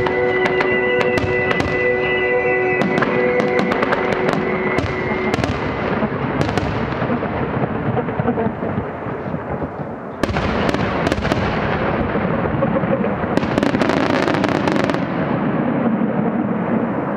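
Aerial fireworks bursting in a dense, continuous barrage of bangs and crackling, easing briefly before a fresh volley about ten seconds in. Music with long held notes plays under the first few seconds.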